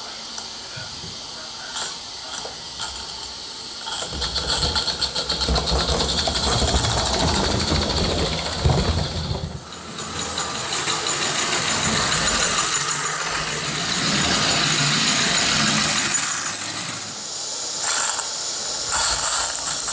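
Roundhouse 'Lady Anne' live steam locomotive running on tinplate track, with a steady hiss of steam and a fast, even beat at times. A low rumble from the wheels on the metal track comes and goes as it passes.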